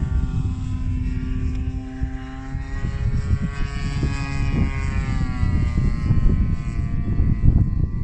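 The engine and propeller of a Seagull Edge 540 V2 radio-controlled aerobatic model plane drone steadily in flight overhead, the pitch wavering and rising slightly partway through, with a heavy low rumble of wind on the microphone.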